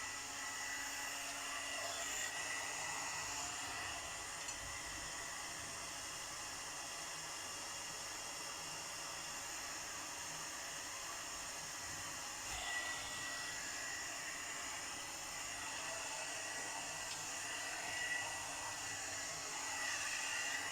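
Premio 3-in-1 hot-air blower brush running steadily on its middle setting, blowing air as a hair dryer does, with a faint steady high tone in the hiss. The airflow swells slightly a few times as the brush moves through the hair.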